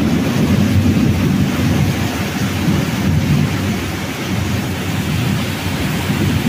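Heavy monsoon rain pouring down steadily, with a deep continuous rumble underneath.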